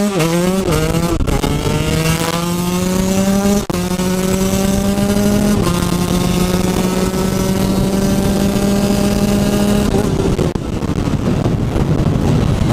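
Husqvarna TE 125's single-cylinder two-stroke engine, with an owner-upgraded head and exhaust, pulling hard up through the gears. Each upshift is a short dip and drop in pitch over the first six seconds, then it holds a steady high rev until the throttle is closed about ten seconds in.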